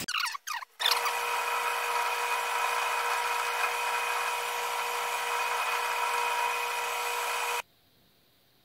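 Small bench metal lathe running and turning down a small rod: a steady hiss with a constant whine over it, after a couple of short falling squeals at the start. It stops abruptly near the end.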